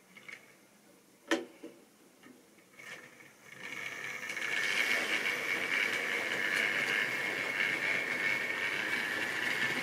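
Model railway train running past on the track: the locomotive's small electric motor whining and the wheels rattling over the rails, building in over about a second from roughly the middle and then holding steady. Before it come a few faint clicks and one sharp click about a second in.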